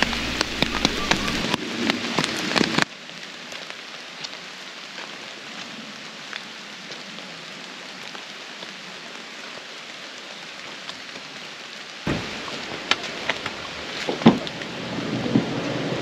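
Rain falling on forest leaves: a steady hiss of rain with scattered heavier drops ticking. It drops abruptly to a softer patter about three seconds in and comes back louder, with more single drop hits, about twelve seconds in.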